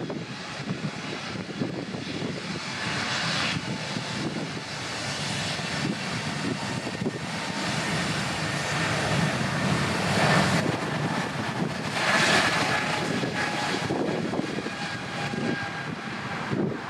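Airbus A220-300 airliner's Pratt & Whitney PW1500G geared turbofan engines running as the jet passes, a steady rush with a faint whine that swells, peaks about ten to twelve seconds in, then fades.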